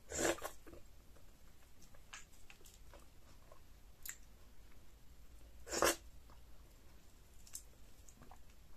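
Close mouth noises of eating by hand: two short, loud wet slurps as morsels of pounded yam fufu coated in slimy ogbono-okra soup are sucked into the mouth, one just after the start and one about six seconds in, with faint lip smacks and clicks between.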